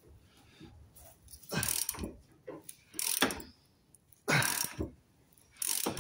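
Hand ratchet wrench clicking through four strokes, about one every second and a half, winding a bolt that presses a rear lower shock absorber bush out through a socket.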